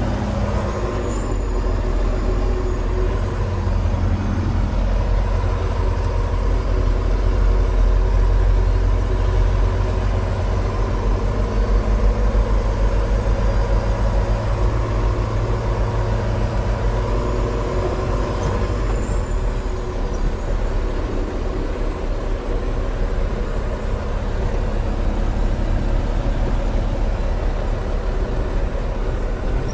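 Volvo VNL semi truck's diesel engine running as the truck drives slowly away, heard from inside the cab: a steady low rumble.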